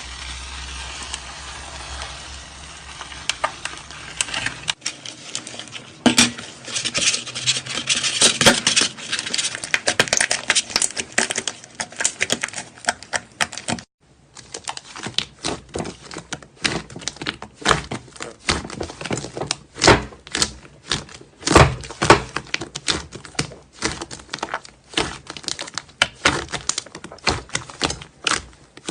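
Slime being pressed and squished by hand: a dense run of sticky clicks and small pops as air pockets in the slime burst, with a brief break about halfway through.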